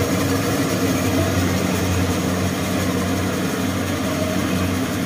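Kubota rice combine harvester's diesel engine running steadily as the machine harvests the paddy, a constant engine drone.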